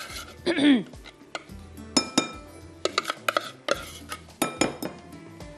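Clinks, taps and scraping as chopped green masala is knocked and scraped out of a plastic chopper bowl onto fish in a glass bowl, with a string of sharp knocks from about two to five seconds in. A short falling voice sound, the loudest thing here, comes just under a second in.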